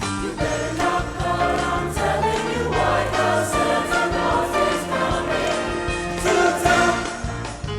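High school choir singing a Christmas song in parts, with instrumental accompaniment underneath.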